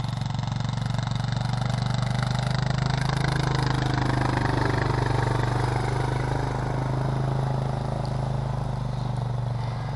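Four-wheeler (ATV) engine running at a steady pitch while plowing snow with a front-mounted blade, getting a little louder about halfway through and then easing back.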